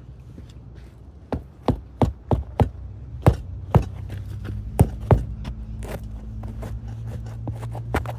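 A boot kicking at the base of a loose concrete block foundation wall: a run of sharp, irregular knocks, two to three a second, starting about a second in. The knocking is the sign of a loose block in a settled foundation.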